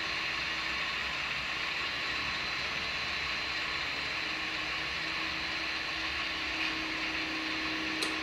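HO-scale model GE diesel locomotives (Atlas U30C and U23B) with SoundTraxx Tsunami sound decoders, playing the GE prime mover's running sound through the models' small speakers along with the whir of their motors and gears as they creep forward. The sound is steady, and one sharp click comes near the end.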